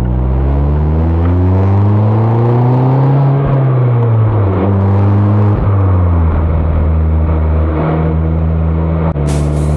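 Mazda ND Roadster's four-cylinder engine and exhaust under way: the engine note rises for about three seconds, drops back, then settles into a steady cruise.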